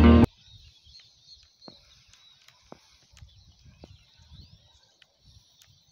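Guitar background music cuts off abruptly right at the start, leaving faint outdoor ambience: thin, high distant bird calls over scattered soft clicks and low bumps.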